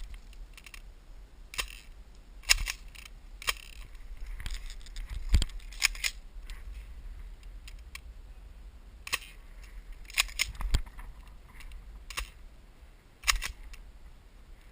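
Irregular sharp clicks and snaps, a dozen or so, some in quick pairs.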